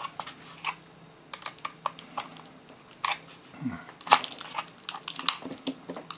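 The plastic case of a laptop battery pack and its cell string being pried apart by hand. It gives irregular sharp cracks, clicks and crinkles, loudest about four seconds in.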